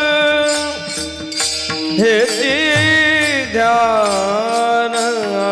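Warkari bhajan music: the rhythmic clash of small taal hand cymbals over steady sustained accompaniment. About two seconds in, a male voice enters with a long, wavering, drawn-out sung note that bends up and down for about three seconds.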